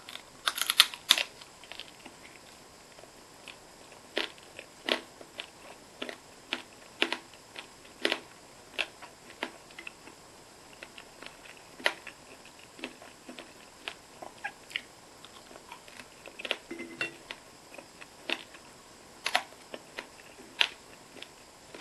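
Close-miked eating sounds: chewing and biting with sharp mouth clicks, a quick cluster of them about a second in, then single clicks at irregular intervals.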